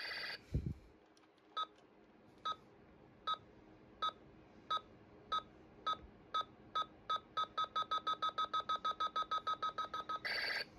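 Electronic sound effects from a Stars and Stripes Buzz Lightyear action figure: a thud about half a second in, then single beeps about a second apart that speed up into a rapid run. Near the end the beeping gives way to loud pulsing electronic tones.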